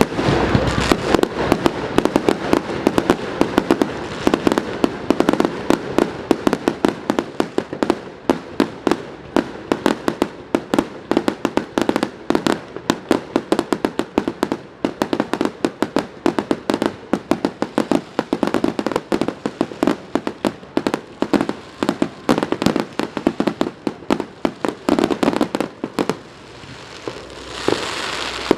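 Fireworks going off in a dense, rapid string of sharp cracks and pops, many per second, that thins out to a short lull near the end before a few more cracks.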